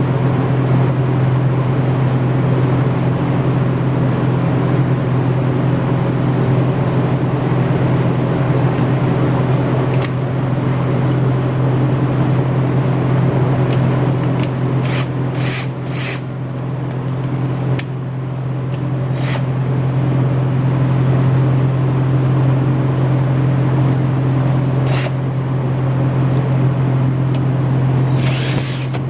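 Steady, loud low machine drone, like an engine or motor running, with a few sharp clicks about halfway through and once more near the end.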